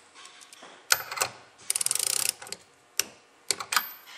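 Ratchet wrench tightening a lock nut: a fast run of ratchet clicks about two seconds in, between a few single sharp metal clicks and clinks of the tool on the fitting.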